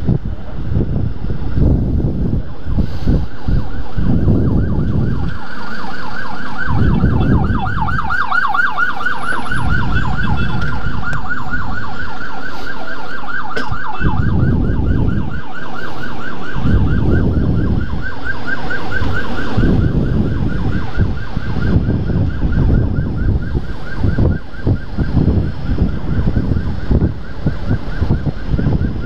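Ambulance siren in a fast up-and-down yelp, coming in about five seconds in and loudest a few seconds later. Heavy wind rush buffets the helmet-mounted microphone on the moving motorcycle throughout.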